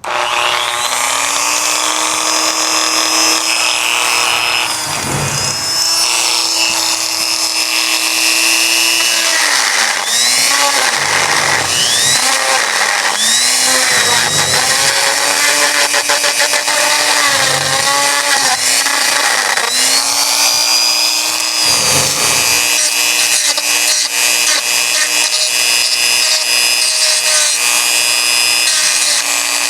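Electric power tool motor starting suddenly and running at a steady whine. Through the middle stretch it repeatedly slows down in pitch and picks back up again, as if loaded against the work and eased off.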